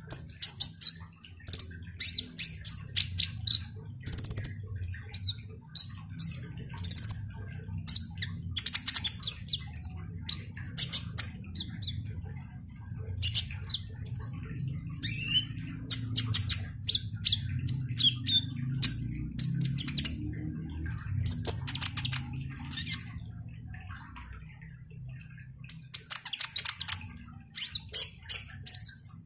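Male kolibri ninja sunbird singing a rapid, varied twittering song of sharp high chips and short slurred whistles, in quick runs with short gaps and a longer pause a few seconds before the end.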